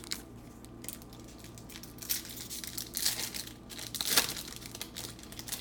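Trading card pack wrapper crinkling and tearing as a pack is opened, in several irregular rustles with the loudest near the end.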